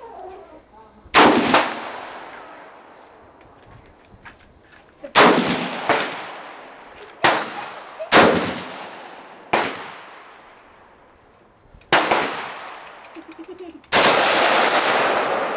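AR-15-style rifle firing single shots, about seven of them, spaced one to three seconds apart. Each shot rings out with a long fading echo.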